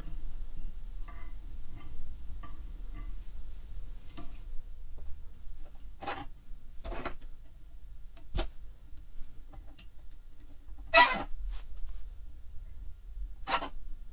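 Handling clicks and small scissor snips as feathers are wound onto a hook in a fly-tying vise and trimmed. There are about five sharp clicks, the loudest about eleven seconds in, over faint rustling.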